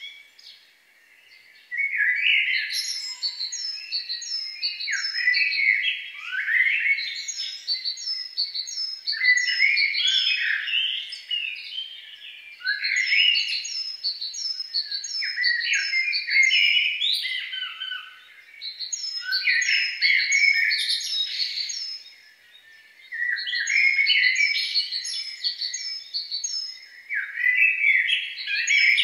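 Songbirds singing in phrases of three to four seconds with brief pauses between them: a quick run of high chirps, about five a second, over lower warbling notes.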